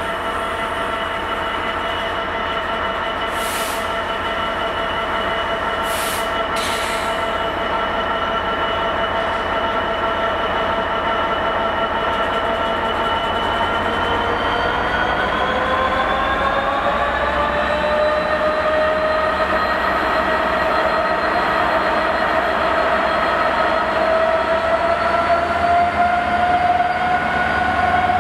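Class 66 diesel-electric freight locomotive with its EMD two-stroke twelve-cylinder engine running past slowly, a steady whine over the engine drone growing louder as it comes alongside. The whine rises in pitch over a few seconds about halfway through as the locomotive powers up, and two short hissing sounds come in the first seven seconds.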